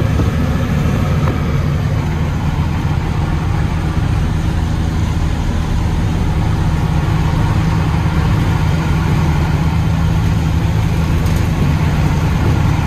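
Heavy truck's Caterpillar diesel engine running steadily under way, heard from inside the cab, with a constant rumble of road noise.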